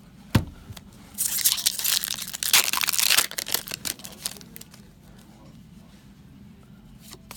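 Foil wrapper of a Magic: The Gathering booster pack being torn open and crinkled for about two seconds, after a sharp knock near the start, then fading to light rustling.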